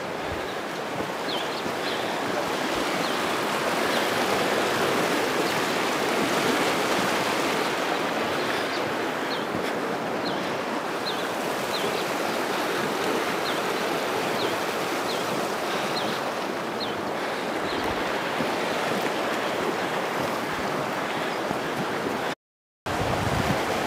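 A river rushing in a steady, fairly loud wash of water noise. A bird's short high chirps come through now and then. The sound drops out briefly near the end.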